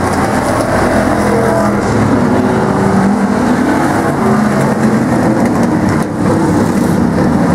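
Engines of several old demo-class race cars running hard as the pack laps a short paved oval, their overlapping engine notes rising and falling as they pass.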